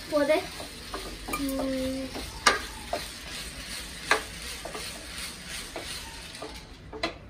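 Food sizzling in a hot pan while a spatula stirs it, with sharp scrapes and knocks against the pan at irregular moments.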